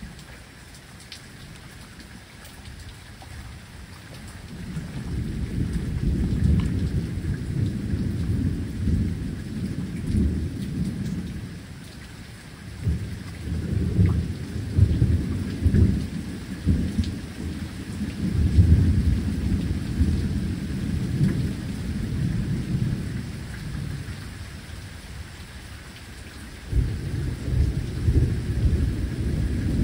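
Steady rain falling, with long low rolls of thunder rumbling over it for several seconds at a time; a new roll starts suddenly near the end.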